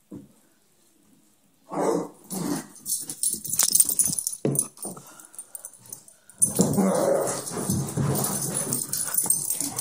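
A dog growling and whining, first in short bursts after a quiet start, then more continuously and louder through the last few seconds.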